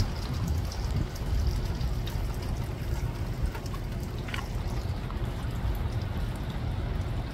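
Wind rumbling on the microphone, wavering in strength, over rain falling on a pond.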